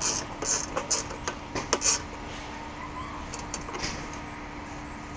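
Ratchet wrench clicking in short strokes about twice a second, loosening bolts on a small engine's housing. The strokes thin out to a few near the middle, over a faint steady hum.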